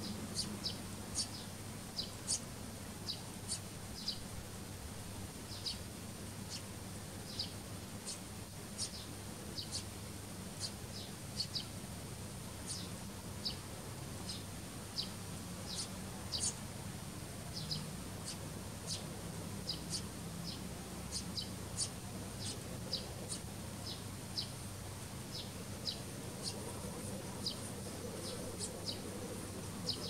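Eurasian tree sparrows chirping: short, sharp chirps repeated irregularly, about one or two a second, over a steady high-pitched whine.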